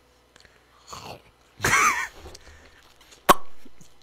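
Exaggerated wet mouth and lip noises made close to the microphone in a mock-ASMR style: a breathy rush about a second in, a short vocal sound just before the two-second mark, and a sharp lip-smack pop near the end.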